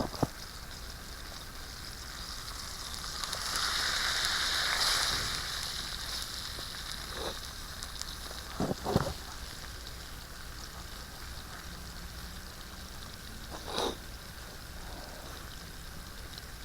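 Strip steak sizzling on a grill over a campfire, a steady hiss that swells louder for a couple of seconds about four seconds in, with a few pops from the fire.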